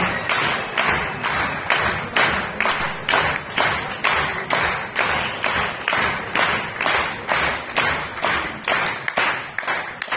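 Audience clapping in unison, a steady beat of about three claps a second.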